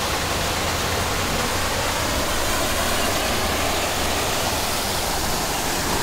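Small garden waterfall pouring into a stream: a steady rushing of water with a low rumble underneath.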